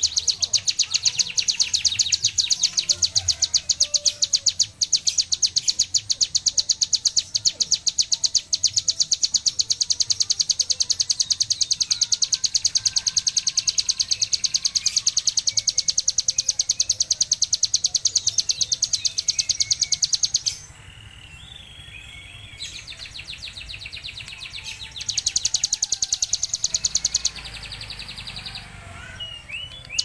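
Caged ciblek gunung (a prinia) singing its rapid machine-gun-like burst: a fast, even run of high repeated notes. The run breaks off about two-thirds of the way through, comes back in a short burst a few seconds later, and starts again right at the end.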